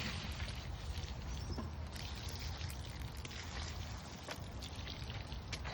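Water pouring steadily from a bucket onto the ground at the base of a tree.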